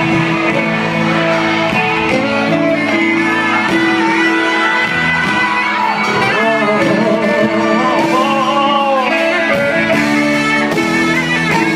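Live band playing an instrumental passage of a pop-rock ballad in a large room, with guitar prominent and held notes that bend in pitch around the middle.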